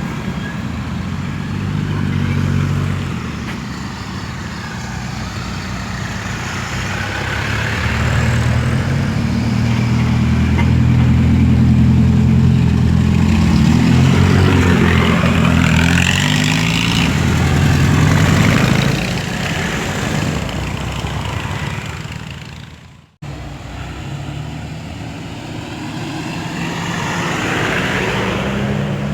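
Off-road vehicle's engine running under way on a dirt trail, its level swelling and easing as it drives, with a whine rising and falling above it. The sound drops out abruptly for an instant about two-thirds of the way through, then the engine carries on.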